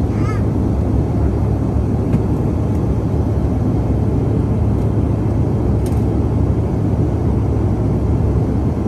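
Steady cabin noise of a Bombardier CRJ-700 climbing out after takeoff: its rear-mounted GE CF34 turbofans and the airflow, heard from inside the cabin as an even, loud rumble with a steady low hum.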